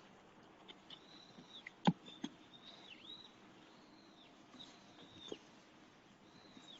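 Birds calling in a forest: a string of short, high calls that rise and fall, over faint background hiss, with a few sharp taps, the loudest about two seconds in.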